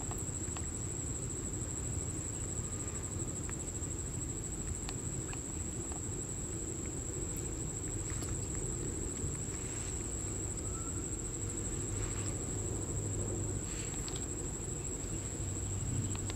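Insects trilling one steady high note over a low rumbling noise, with scattered small clicks and rustles.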